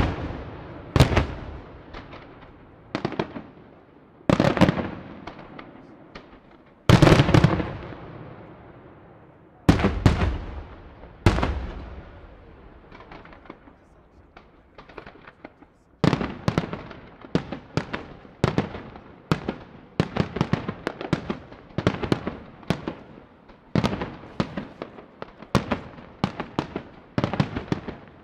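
Aerial firework shells bursting, each loud boom echoing and dying away, one every second or two. After a short lull of faint crackle, a rapid string of sharper reports, several a second, runs on from a little past halfway.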